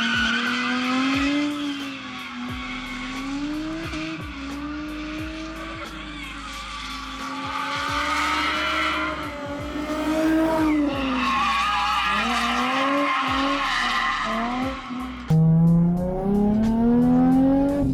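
Nissan 350Z's V6, geared short with a 3.9 diff, revving up and down in second gear while drifting, with tyres squealing. Background music runs underneath, and about 15 s in the sound jumps suddenly louder.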